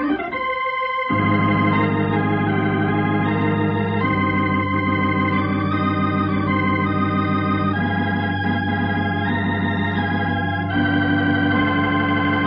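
Organ music bridge: sustained organ chords over a held low bass note that comes in about a second in, with the chords changing every three to four seconds.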